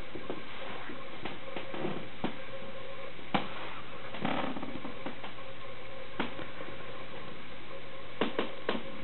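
Steady recording hiss with a faint hum, broken by scattered small clicks, three close together near the end, and a short soft rustle about four seconds in.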